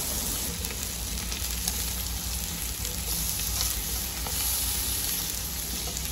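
Marinated chicken pieces sizzling steadily on a hot grill grate, freshly basted with chicken oil and butter. A few light clicks of a metal utensil against the grate come as the pieces are turned.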